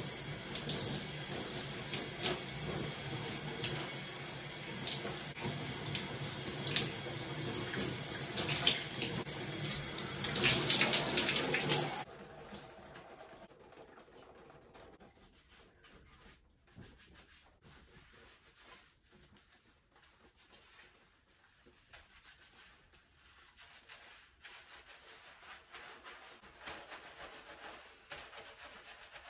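Shower water running and splashing onto hair and tile, cut off suddenly about twelve seconds in. After that come faint sounds of hands rubbing shampoo lather through wet hair.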